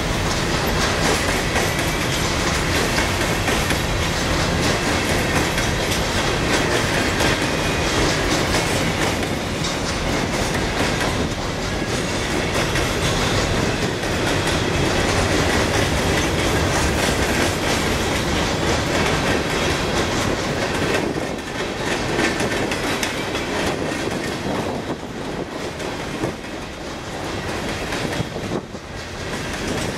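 CSX coal train's hopper cars rolling past, with a continuous clatter of wheels over the rail joints. It gets somewhat quieter over the last several seconds.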